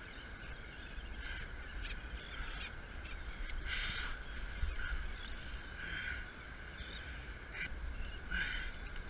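Gulls calling again and again, short harsh calls, the loudest about four seconds in and again near the end, over a steady low rumble.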